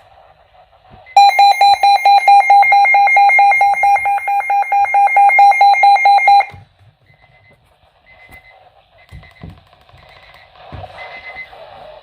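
Emergency alert attention signal from an EAS encoder: a loud electronic beep pulsing rapidly on and off for about five seconds, starting about a second in, then cutting off.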